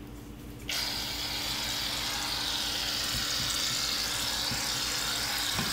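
Aerosol can of shaving cream dispensing foam with a steady hiss that starts about a second in.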